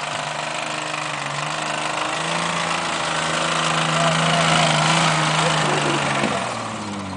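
Off-road truck engine running hard under throttle, its pitch stepping up about two seconds in, with a rushing noise that swells to a peak around the middle and eases off near the end.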